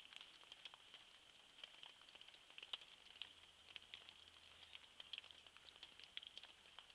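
Faint, scattered patter of raindrops landing near the microphone: irregular small taps, several a second, over a faint steady high-pitched tone.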